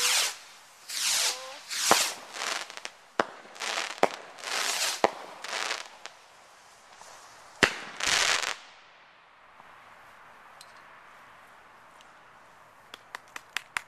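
Fireworks going off: a run of short rushing bursts and sharp bangs for about eight seconds, then a lull, then a quick string of small crackling pops near the end.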